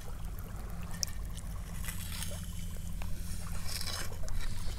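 Shallow seawater lightly sloshing and trickling around a hand and a metal crab hook probing the sandy bottom, with a few faint ticks, over a steady low rumble.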